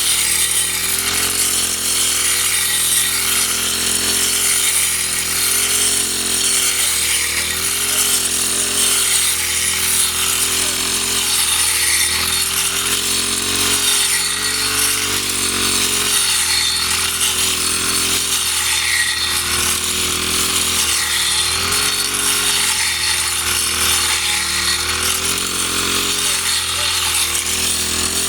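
Small high-revving petrol engine of a grass-cutting machine running continuously. Its pitch dips and recovers every second or two as it takes load while cutting fodder.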